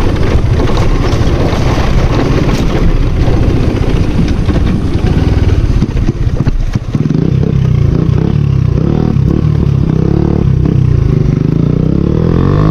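Hero Honda motorcycle's single-cylinder four-stroke engine running loud through an aftermarket M4 exhaust with its dB killer removed, while the bike is ridden. From about seven seconds in, the exhaust note rises and falls with the throttle.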